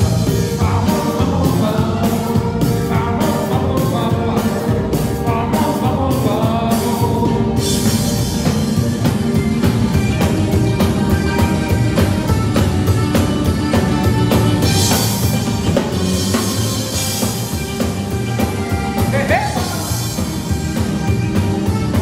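A cumbia band playing live, with electric bass and drums keeping a steady beat under a melodic lead line.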